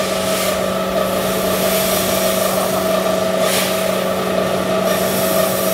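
Rapeseed roasting machine running: its rotating drum gives a steady mechanical hum with an even hiss over it.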